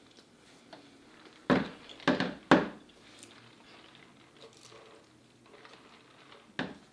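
A few short sharp handling sounds: three in quick succession about a second and a half in and one more near the end, with quiet room tone between.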